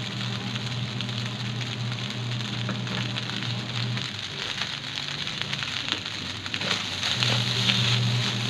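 Rice frying in a hot wok: a steady sizzle over a low hum, with light scraping clicks as a spatula stirs the rice near the end.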